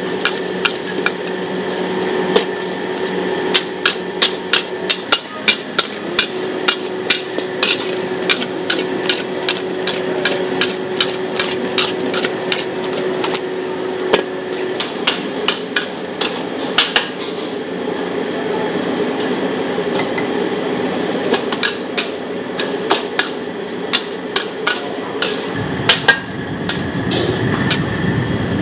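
Metal wok spatula clanking and scraping against a carbon-steel wok as noodles are stir-fried over a charcoal stove, in quick, irregular strikes, several a second at times, over a steady hiss.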